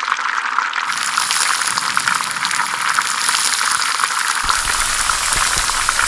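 Food sizzling as it fries in a hot pan: a steady hiss with many small crackling pops. A low rumble joins in a little past halfway.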